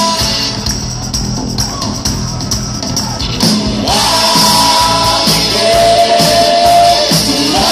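Live rock band playing with a male singer holding long notes. About four seconds in, a sung note rises and is held, and a long steady note follows near the end.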